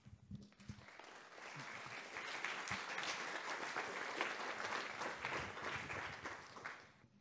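Audience applauding. The clapping builds up over the first two seconds and dies away near the end.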